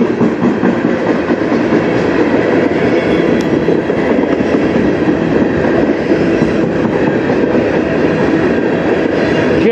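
Freight train tank cars rolling past close by: a steady, loud rumble of steel wheels running on the rails.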